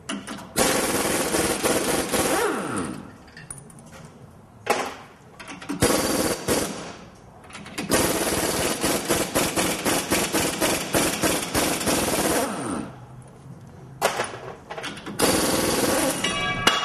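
Impact wrench running in about six bursts of rapid hammering, the longest about four seconds, as it loosens the rear leaf-spring bolts.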